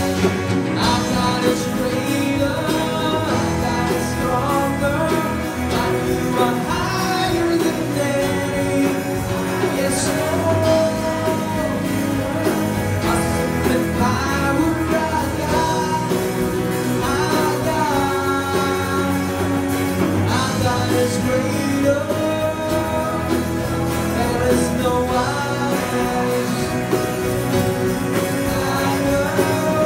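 A live worship band playing a rock-style song: drum kit, electric and acoustic guitars, bass and keyboard behind a sung melody.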